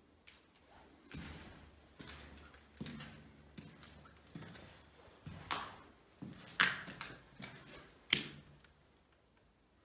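Irregular knocks and scuffs, roughly one a second, with the two sharpest in the second half.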